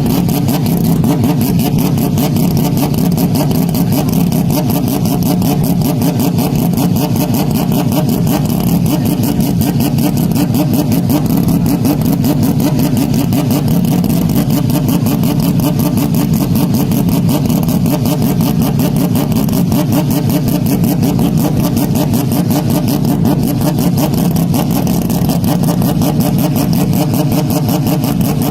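Motocross motorcycle engines running, a loud and steady drone with a fast pulsing beat that hardly changes.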